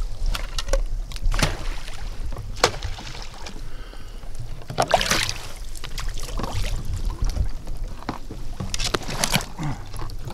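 Water splashing and sloshing as hunters wade in waders and toss duck decoys onto shallow marsh water, with several uneven splashes, the biggest about five seconds in and around nine seconds.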